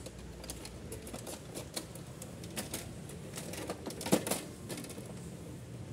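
Irregular plastic clicks and knocks from hands working inside an Epson L360 inkjet printer's open carriage area, with one louder knock about four seconds in.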